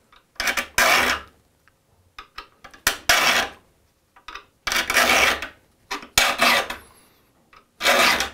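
Triangular saw file rasping across the steel teeth of a saw plate in short strokes, mostly in pairs with pauses between, each pair filing one notch into a tooth.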